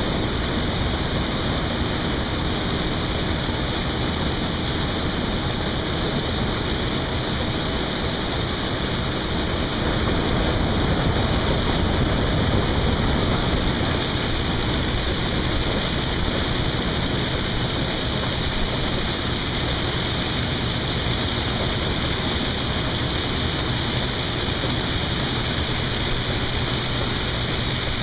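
Farm harvest machinery running steadily while harvesting corn. It makes an unbroken, even roar with a strong hiss and no changes.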